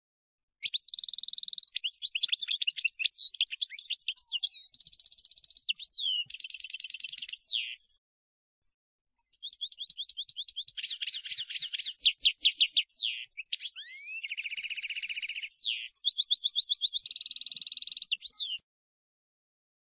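European goldfinch singing: long runs of fast twittering trills, buzzy notes and rapid repeated chirps. Two long phrases are separated by a silence of about a second and a half in the middle.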